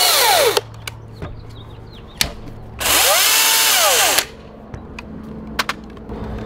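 Battery-powered top-handle chainsaw revved free in the air, without cutting, twice. The first short burst cuts off just after the start; about three seconds in, a second burst's motor whine climbs and falls away over about a second and a half. There are a few light clicks from handling the saws between the bursts.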